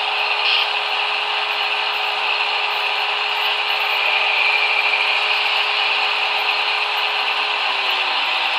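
HO-scale model train running along the track: a steady mechanical rattle of wheels on rail over a constant hum, which drops a little in pitch near the end.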